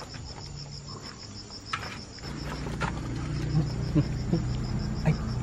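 Insects chirping in a steady, rapid, even pulse. About two seconds in a low hum comes in, and a few short clicks and knocks sound over it.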